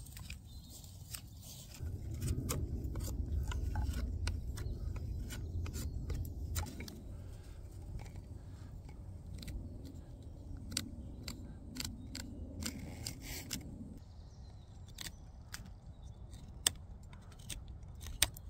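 Knife blade carving and shaving wood by hand: a run of short, sharp cuts and scrapes, with two louder snicks near the end. A low rumble runs under the middle of it.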